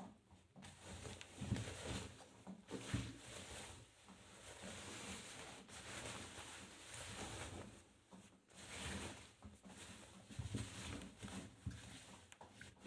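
Arçelik 5083 washing machine drum turning wet laundry during a rinse: swishing water and soft thuds of the load that swell and fade every few seconds as the drum turns and pauses.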